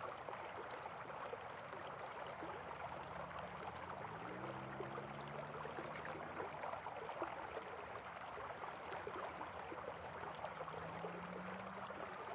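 Faint steady rush of flowing water, with a faint low hum that comes in twice: a few seconds in, and again near the end.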